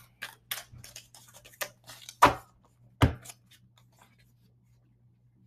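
Deck of angel oracle cards being shuffled by hand: a run of quick light card clicks, then two sharper snaps of a card less than a second apart.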